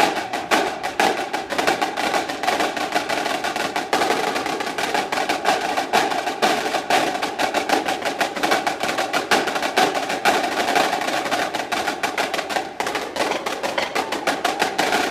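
Marching drumline playing a fast, dense run of drum strokes.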